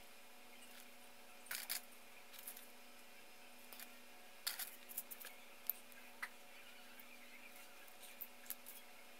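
Light, scattered clicks and taps of hard plastic model-kit parts and runners being handled and set down in a cardboard box, over a faint steady hum.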